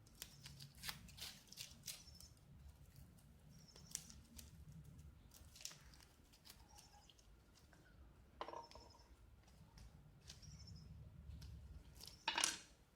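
Faint handling sounds of a dried fig being split open by hand and a peeled garlic clove pushed into it: scattered light clicks and rustles, with one louder click near the end.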